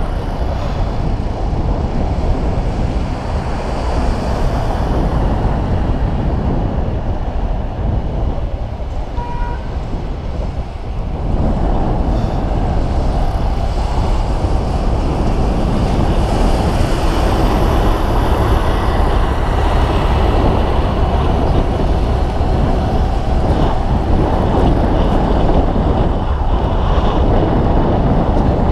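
Wind rushing over the microphone of a bicycle-mounted camera while riding along a paved road: a steady, rumbling noise that gets louder about eleven seconds in.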